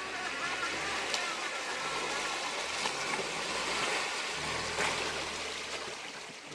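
Car engine running at low revs under a steady rush of water, as when driving through a river ford.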